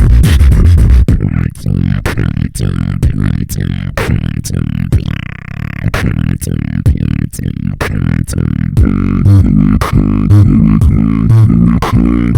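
Vocal beatboxing: fast, sharp snare and hi-hat clicks over deep bass. The bass drops back after about a second, then returns near the end as wobbling bass tones.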